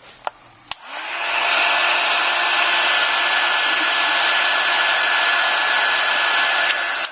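Hand-held hot-air blower switched on with a click about a second in, running steadily with a faint whine, then switched off near the end. It is heating the iPhone 5's home button flex to loosen its adhesive.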